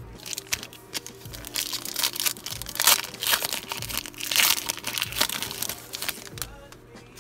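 Foil-and-plastic wrapper of a Panini Mosaic football card pack being torn open and crinkled by hand, a dense crackling that dies away near the end. Background music with a steady beat plays underneath.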